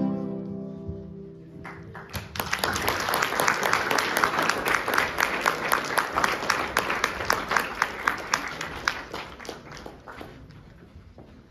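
The last chord of a song with guitar and keyboard dies away, and about two seconds in an audience starts applauding. The clapping thins out and fades towards the end.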